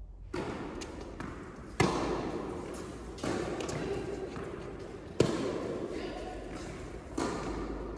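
Tennis rally on an indoor court: sharp racket strikes on the ball, the two loudest about two seconds in and about five seconds in, with softer hits and bounces between, each ringing on in the hall.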